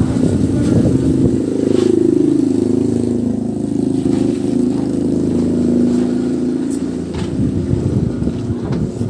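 A motor vehicle's engine running close by, holding a steady pitch from about a second in until about seven seconds, over a rough low noise.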